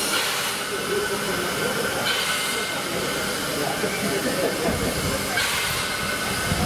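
NSWGR 30 class 4-6-0 steam locomotive hissing steam steadily, the hiss swelling about two seconds in and again near the end.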